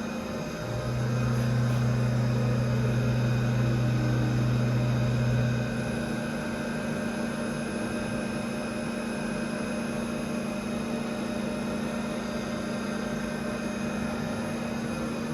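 Wagner CNC machining centre running with a steady electric motor hum and a whine of higher tones; a louder, deeper hum comes in about a second in and cuts off about five and a half seconds in.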